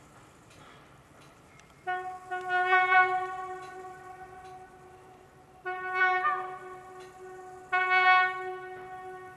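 Train horn sounding three times, one steady single-note tone each time. The first blast, about two seconds in, is the longest. The second and third follow about four and six seconds in. Each starts sharply and fades away slowly.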